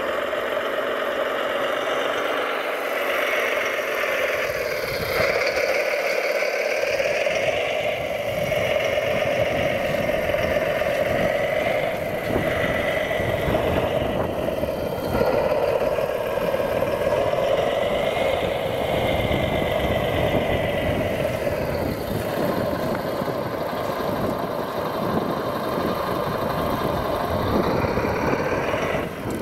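Radio-controlled model construction machine running, a steady motor and gear whine whose pitch rises and falls several times as it works.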